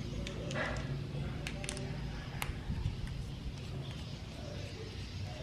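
Faint small clicks and ticks of a precision screwdriver working a screw out of a smartphone's metal plate, with the phone handled in the hand, over a low steady hum.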